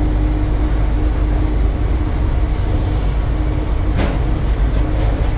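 Eicher BS6 truck under way, heard from inside the cab: a heavy low engine and road rumble with a steady hum, and a single sharp click about four seconds in.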